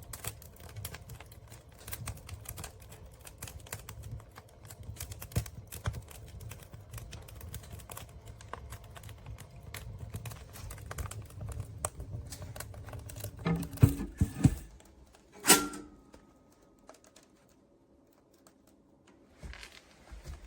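Clicking and knocking handling noises, then a few loud knocks and a sharp clank about fifteen seconds in, followed by a ringing tone that dies away over a couple of seconds.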